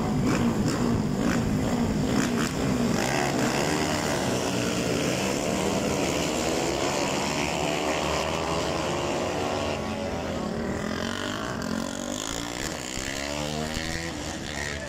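A pack of supermoto motorcycles revving hard together at a race start and accelerating away. Many engines overlap, rising and falling in pitch, and the sound slowly fades as the bikes pull away down the track.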